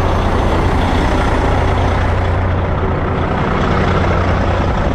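Tractor-trailer's diesel engine idling steadily with a deep, even hum.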